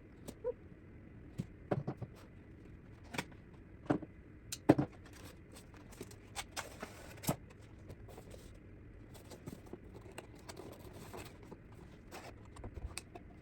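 Graphics card box being opened: sharp clicks, taps and short scrapes of cardboard and packaging being handled, irregular and most frequent in the first half, the loudest snap about four and a half seconds in.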